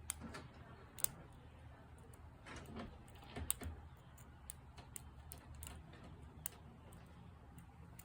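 Irregular small metallic clicks and light scraping of a McTickler lock pick working the pins of a padlock under heavy tension, one louder click about a second in.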